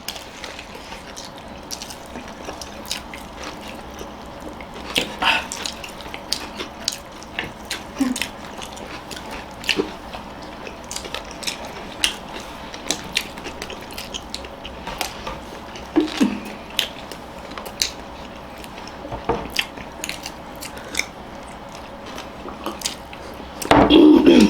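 People chewing mouthfuls of chicken burger, with many scattered short smacking and chewing clicks. A brief loud burst of voice comes near the end.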